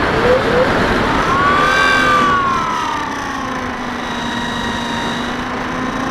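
Brushless electric motor and pusher propeller of a Bixler 2 RC foam plane, heard from the onboard camera: the whine rises in pitch about a second in as the throttle opens, falls back after about two seconds, then holds steady, over a rushing of air.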